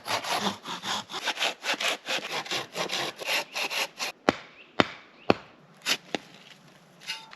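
Hand saw cutting through pine wood with fast back-and-forth strokes, about four a second, for roughly four seconds. It then stops, and a few sharp knocks follow about half a second apart.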